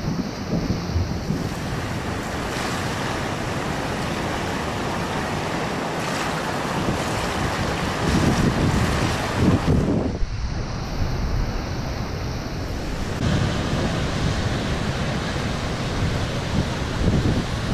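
Ocean surf washing onto a sandy beach, a steady rush of breaking waves, with gusts of wind buffeting the microphone that are strongest shortly before ten seconds in and near the end.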